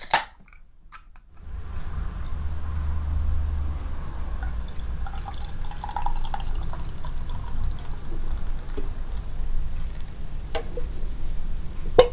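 A sharp click, then a long steady pour of liquid, likely low-malt beer poured into a glass, with two clicks near the end.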